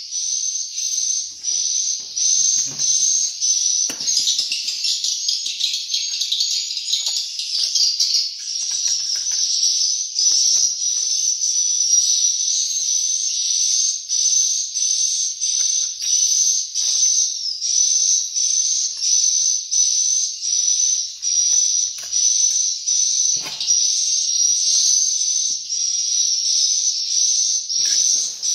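Swiftlet lure call played through speakers: a high chirping call repeated over and over at an even pace, about one to two times a second, used to draw swiftlets into the bird house. A few faint knocks of the trowel against the bricks come through underneath.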